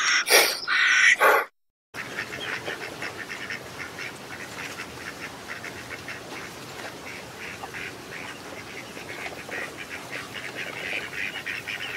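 A few loud, harsh bird calls, cut off after about a second and a half. After a short break, a flock of birds calls all at once in a dense, continuous chatter of many short calls.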